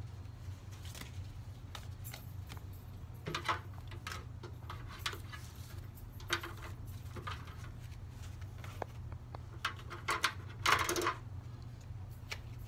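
Banded stacks of paper banknotes being handled in a metal cash box: short crinkling, rustling bursts, the longest about eleven seconds in, over a steady low hum.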